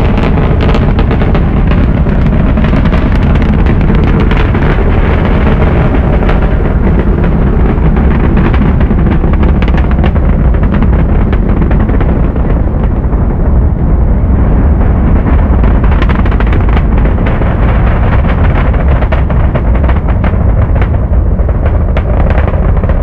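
Saturn V rocket's five F-1 first-stage engines at full thrust during launch: a loud, continuous low rumble thick with crackling.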